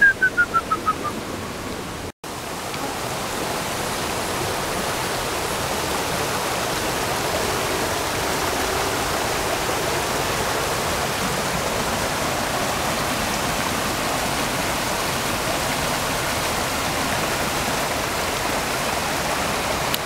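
Rain-swollen creek rushing over rocks in a steady, even roar of water. In the first second, before the water, there is a quick falling run of about eight high chirps, and about two seconds in the sound drops out for an instant.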